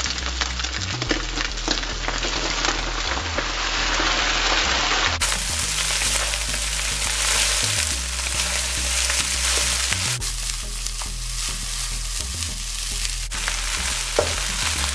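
Red-sauce fried rice sizzling in a hot nonstick wok as it is tipped in over scrambled eggs and stirred, the spatula scraping and turning the rice in the pan.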